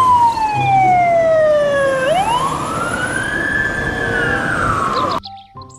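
Fire engine siren wailing over road and engine noise. Its pitch falls slowly, sweeps back up about two seconds in, then falls again, and it cuts off suddenly near the end.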